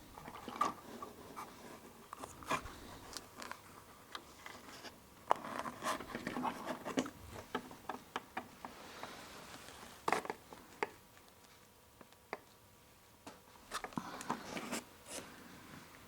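Hands handling a small plastic model part and sticky putty: light clicks, taps and short rubbing sounds at irregular intervals while the part is pressed into place.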